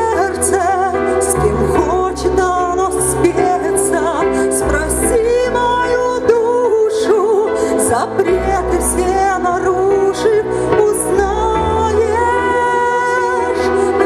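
A woman singing a pop song into a microphone over a recorded backing track with a steady bass line and drums, amplified through an outdoor stage's PA speakers.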